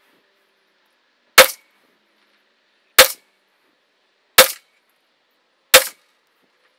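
PSA Jakl 300 Blackout pistol with an 8.5-inch barrel firing supersonic 110-grain rounds: four single aimed shots, each a sharp report with a brief tail, spaced about one and a half seconds apart.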